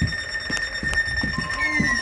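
Electronic alert tones: a steady high tone, joined near the end by a second tone sliding downward in pitch, like a siren winding down.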